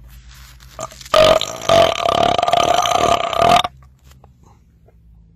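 A man's long, loud belch at a steady pitch, starting about a second in and lasting about two and a half seconds, with a brief catch just after it begins.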